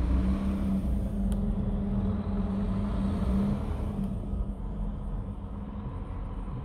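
Scania R tractor unit's diesel engine idling steadily, a low rumble heard from inside the cab.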